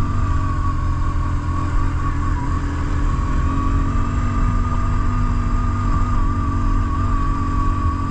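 BMW R1150GS Adventure's boxer-twin engine running steadily as the bike rides along at an even pace, with wind rush and a steady high whine over it.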